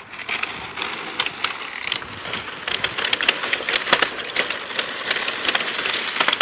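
Large 3D-printed plastic RC vehicle driving over rough asphalt: a steady whirring clatter from its drivetrain and wheels, with rapid, irregular clicks and rattles from the plastic parts.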